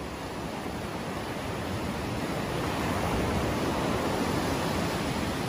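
Surf breaking and washing up a sandy beach, a steady rushing noise that swells slightly louder over a few seconds.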